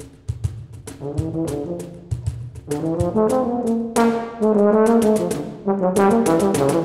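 Euphonium playing a melodic phrase over hand slaps on a cajón, the euphonium growing much louder about three seconds in.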